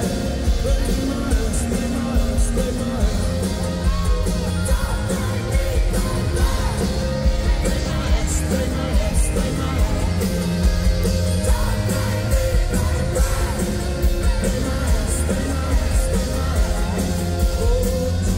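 Live rock band playing through a PA, heard from the crowd: electric and acoustic guitars, drums and sung lead vocals over a steady beat.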